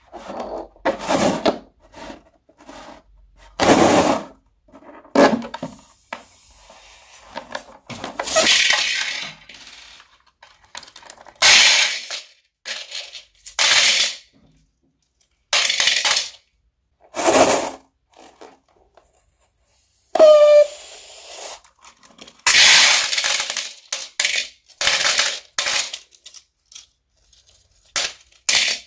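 Small plastic beads pouring out of cut-open balloons and clattering into a bowl, in a string of separate bursts with short pauses between, along with the rubber of the balloons being squeezed. One short squeak that falls in pitch about twenty seconds in.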